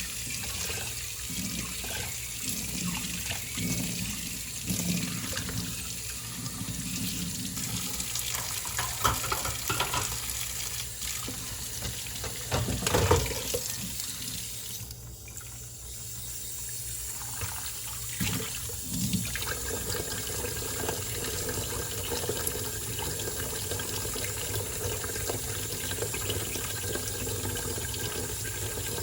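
Kitchen tap running into a sink while dishes are washed and handled by hand, with scattered clinks and knocks of dishware and a louder knock about halfway through. The water runs more evenly in the last third.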